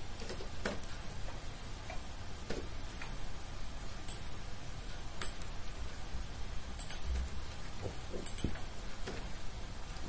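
Computer keyboard being typed on slowly: scattered, irregular key clicks over a low steady hum.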